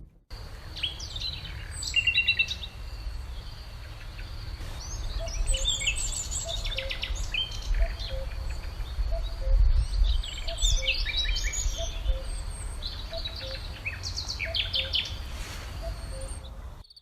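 Several birds of the Uruguayan woodland calling and chirping with short trills and whistles, over a steady high-pitched hum and a faint low call repeating at an even pace. A low wind rumble runs underneath.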